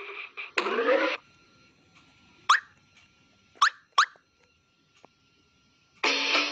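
Cartoon sound effects: a short croak from the cartoon toad in the first second, then three quick rising chirp effects, the last two close together. Guitar music comes in near the end.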